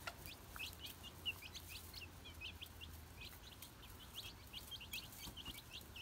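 Young chicken chicks peeping: a stream of short, high cheeps, several a second, faint.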